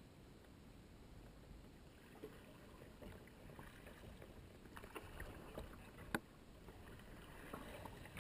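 Faint sounds of a kayak being paddled: water swishing and lapping along the hull, with scattered light clicks and knocks, the sharpest about six seconds in.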